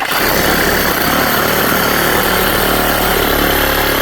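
Reciprocating saw running steadily at full speed as it cuts through the rubber of a blown-out car tire; it starts abruptly.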